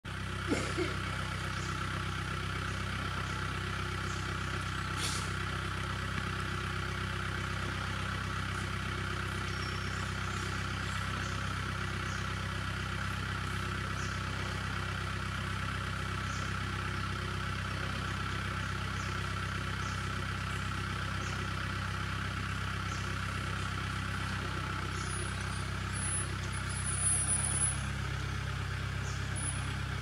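A steady low mechanical hum, like an engine running, throughout, with faint short high-pitched bird calls scattered through and a few higher chirps near the end.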